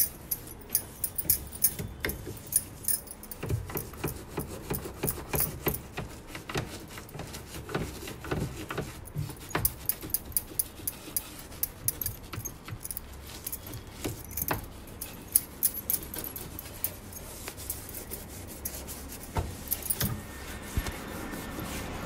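Toothbrush scrubbing the plastic knobs and control panel of a semi-automatic washing machine: irregular scratchy brushing with many sharp little clicks and taps as the brush knocks against the knobs and panel.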